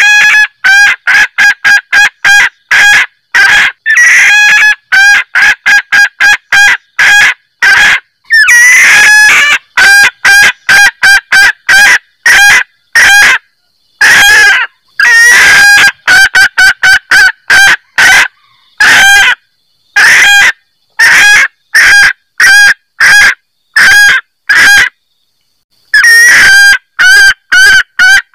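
Hen junglefowl cackling: loud, sharp 'kek' notes in quick runs of several notes, with short breaks between the runs. It is the female's call used as a lure to bring junglefowl males in.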